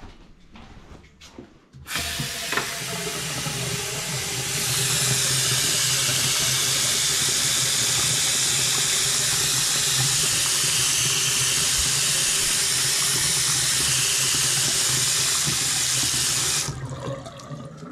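Water tap turned on and running hard into a sink, growing stronger a couple of seconds after it starts, then shut off suddenly near the end. This is a flow test of the drain lines after a blockage was cleared, checking that nothing backs up.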